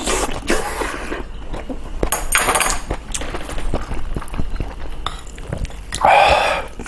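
Cutlery clinking and scraping against bowls of kimchi stew and rice during eating, with many sharp clicks.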